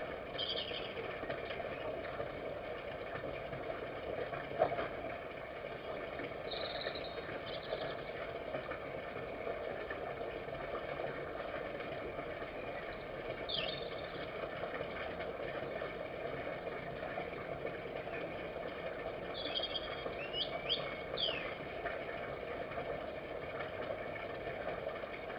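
Steady background hum with a few brief, high bird chirps at intervals, a cluster of sliding chirps near the end, and a single sharp tick about four and a half seconds in.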